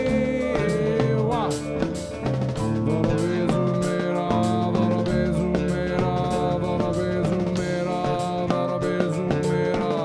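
A band playing a song live: a man singing over electric guitar and drums.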